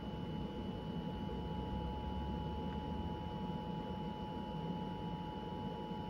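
Emergency Alert System attention signal on a TV broadcast: the steady two-tone alarm (853 Hz and 960 Hz sounded together) held throughout, heard through the TV's speakers during a Required Monthly Test.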